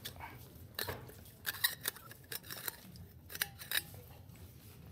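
Plastic water bottle being handled, with a run of short sharp clicks and crackles, as from a cap being twisted and the bottle gripped, from about one to four seconds in.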